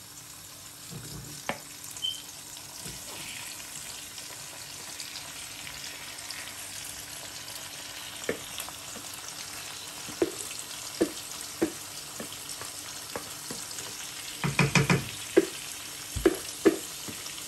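Onions and tomatoes sizzling in oil in a granite-coated wok, with a wooden spatula stirring and knocking against the pan. Partway through, marinated liver pieces in yogurt masala are tipped into the pan. Several sharp knocks follow, with a quick run of loud knocks against the pan a few seconds before the end.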